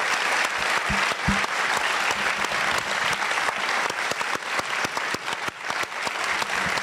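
Large seated audience applauding steadily, a dense patter of many hands clapping.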